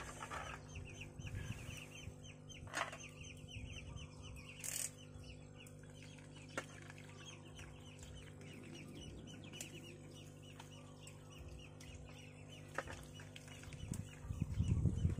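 Rapid, busy chirping of birds, with a steady low hum underneath. A few sharp clicks come from a knife and tongs working a boiled duck on a metal plate.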